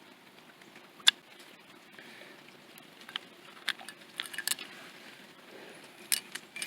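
Scattered sharp taps and clicks, the loudest about a second in and a quick cluster around four seconds, over a faint steady hush.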